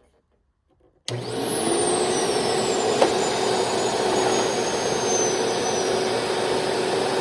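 Sharp Twin Energy upright vacuum with a 12-amp Lamb motor, switched on about a second in and running steadily. A high-pitched whistle falls in pitch over the first few seconds: the telltale sign of the new belt slipping and burning. A single sharp click about three seconds in.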